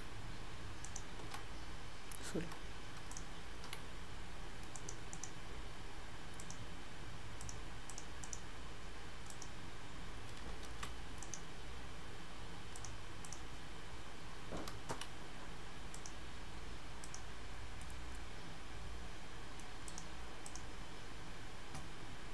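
Computer mouse clicks, scroll-wheel ticks and occasional keyboard key presses, scattered and irregular, over a steady low background hum. Two of the clicks, about two seconds in and about fifteen seconds in, are louder than the rest.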